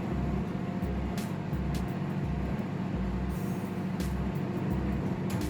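Microwave convection oven running in combination grill mode: a steady low hum with a regular low pulse and a few scattered clicks.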